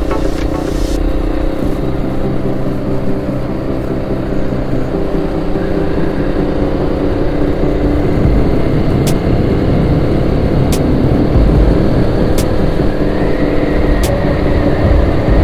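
KTM Duke 250's single-cylinder engine running steadily at cruise, with wind noise on the onboard microphone. In the second half a light sharp click repeats about every second and a half to two seconds.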